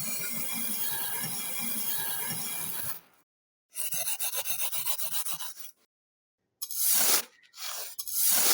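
Small wooden parts being rubbed down by hand with an abrasive: a continuous rubbing for about three seconds, then a run of quick short strokes, then a few separate, louder strokes near the end.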